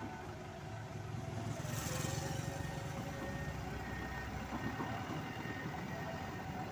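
Heavy diesel machinery running steadily with a low rumble, with a short hiss about two seconds in.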